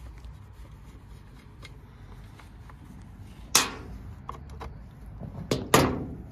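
A chainsaw being handled and wiped down with a cloth: light rubbing and small clicks, with a sharp knock about three and a half seconds in and two more close together near the end as the saw and chain are moved against the table.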